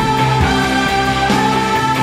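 Background music with a steady beat under sustained chords.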